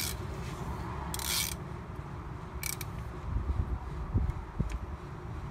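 A socket ratchet wrench clicking and scraping in short bursts as it turns the coolant temperature sensor in, followed by a few low knocks of tool handling.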